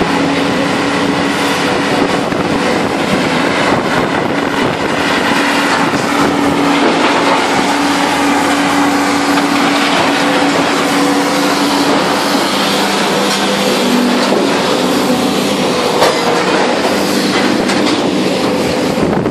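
Heavy scrap-yard machinery running: the Bonfiglioli Squalo 2000 inclined scrap shear and the grab feeding it, a loud steady mechanical drone with a hum that drops lower about twelve seconds in.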